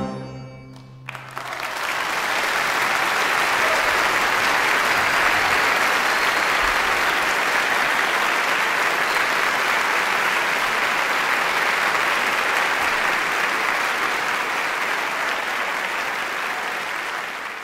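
The orchestra's final chord dies away, and about a second later the audience breaks into steady applause that fades near the end.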